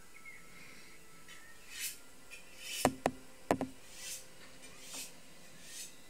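Three sharp knocks, two in quick succession and a third about half a second later, over faint hissing that swells about once a second.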